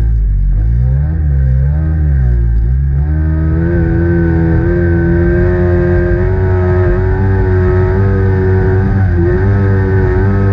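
A junior racing powerboat's engine, heard from on board. For about the first three seconds it revs up and down through a turn, then it holds high and steady as the boat speeds up along the straight, with a brief dip in revs near the end.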